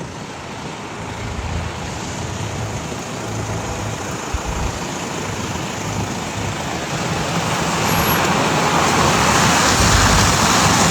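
Road traffic: motor vehicles driving past with steady engine and tyre noise, growing louder near the end as a vehicle comes close.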